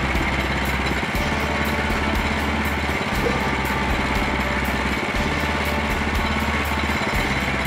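Woodland Mills HM130 bandsaw mill running steadily under its small gas engine, the band blade spinning in a cut through a beech log.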